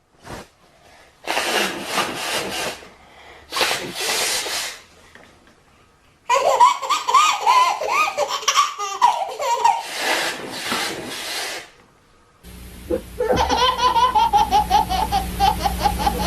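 Baby laughing in bursts of belly laughter, each a run of quick pitched pulses. About twelve seconds in, the sound changes abruptly to a continuous fast laugh over a steady low hum.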